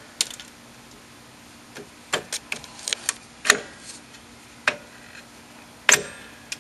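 Metal clicks and clinks of rear drum brake hardware being handled as the brake shoes are moved back, about a dozen scattered clicks, the sharpest about halfway through and near the end.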